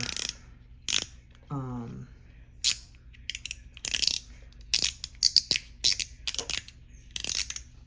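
Metal GAO fidget toy being worked in the hand, giving a string of sharp, irregular clicks, some in quick runs.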